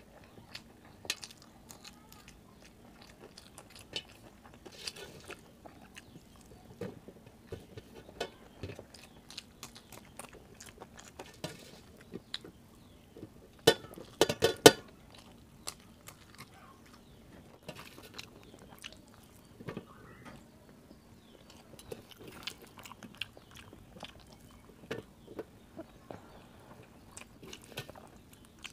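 Close-up eating sounds of rice mixed with kadhi eaten by hand: chewing, lip smacks and fingers scraping rice off a steel plate, heard as many short scattered clicks. A louder brief burst of sound comes about halfway through.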